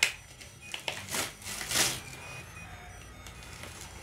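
Gift-wrapping paper crinkling and rustling in a few short bursts, mostly in the first two seconds, as a toddler handles a present.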